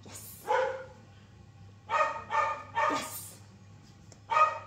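A dog barking about five times: one bark near the start, three in quick succession around the middle, and one more near the end.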